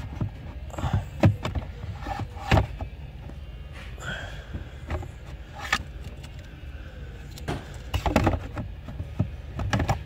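Scattered plastic clicks and knocks as an Audi S5 heater blower motor is worked back into its housing under the dashboard by hand, over a low steady rumble.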